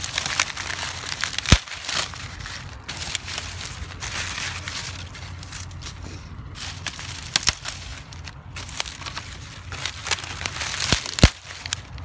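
Dry corn leaves and stalks rustling and crackling as they are pushed through and handled, with many small sharp cracks. Two louder snaps stand out, one about a second and a half in and one near the end.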